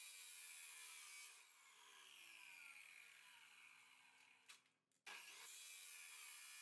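Abrasive chop saw cutting a flat steel strip: a loud, hissing grinding noise that eases off about a second and a half in, its pitch slowly falling, then starts again abruptly at full strength about five seconds in.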